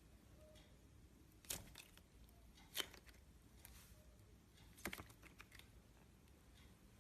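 Clear slime being handled, making a few faint sticky clicks and pops, spaced a second or more apart, over near silence.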